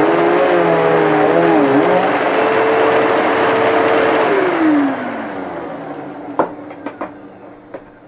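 Hoover Elite Rewind upright vacuum cleaner running on carpet, its motor whine wavering in pitch, then switched off about halfway through, the whine gliding down as the motor spins down. A few sharp clicks follow near the end.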